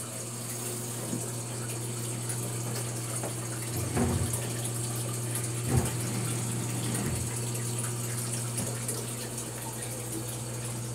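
Water pump of a homemade canister filter humming steadily, with water running through the filter and tank. A couple of light knocks about four and six seconds in.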